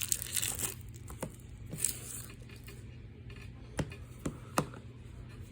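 Handling noise from a plastic movie disc case: a handful of light clicks and taps with faint rustling, over a steady low hum.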